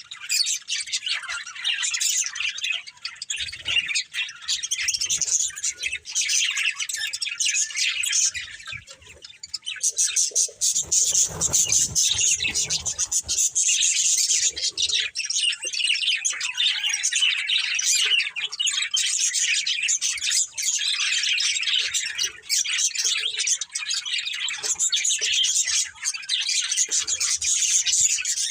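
Several budgerigars chirping and chattering continuously in a dense stream of high twittering, with a brief lull about nine seconds in.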